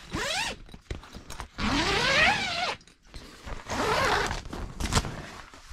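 Tent door zipper being pulled open in three strokes, the middle one the longest, each a gliding rasp whose pitch rises and falls with the speed of the pull, then a short sharp knock.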